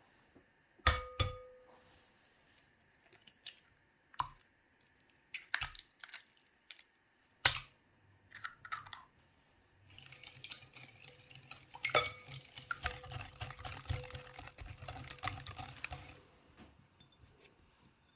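Kitchen utensils knocking and clinking against bowls and dishes, with a ringing clink about a second in. Then about six seconds of continuous scraping from mixing in a bowl.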